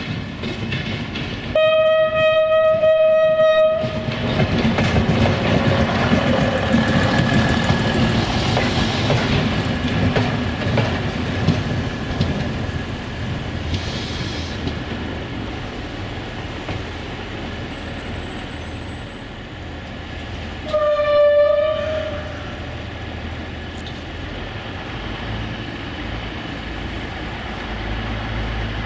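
VT614 diesel multiple unit sounding its horn in one long steady blast of about two seconds, then running past with engine and wheel noise, wheels clicking over the rail joints. It sounds a second, shorter horn blast about twenty seconds in, and the running noise fades after that.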